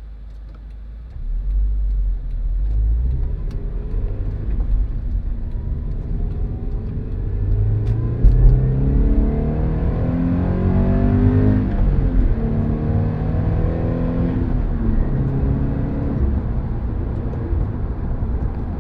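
Subaru BRZ / Toyota 86 2.0-litre flat-four with unequal-length headers and a cat-back exhaust, pulling hard at half to three-quarter throttle up to about 6,000 rpm. The exhaust note climbs steadily in pitch through the middle, then eases off near the end.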